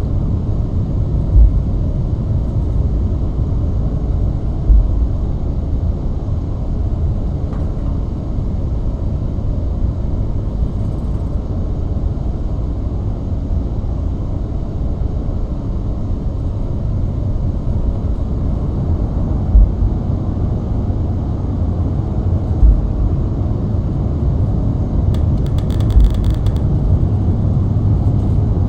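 Steady low rumble of a Boeing 737 MAX 7 in flight, from its engines and the airflow, with a few brief low thumps.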